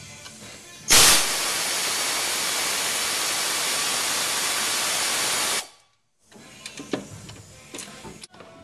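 Pneumatic air ratchet running on a bolt: a loud, steady hiss of exhausting compressed air that starts sharply about a second in and stops abruptly after about four and a half seconds. Faint clicks of the tool being handled follow.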